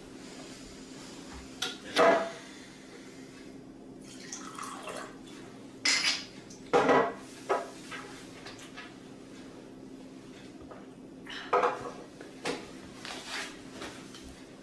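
Clatter and clinks of hard objects being handled, in about six short bursts, over a steady low hum.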